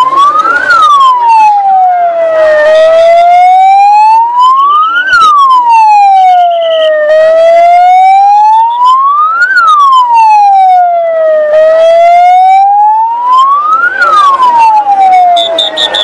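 Siren wailing loudly, its pitch gliding up for about two and a half seconds and back down for about two, a full rise and fall roughly every four and a half seconds.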